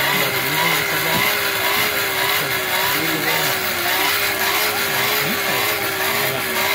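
Hand-cranked forge blower whirring steadily as it blows air into the fire to heat the metal, its pitch wavering gently with each turn of the crank.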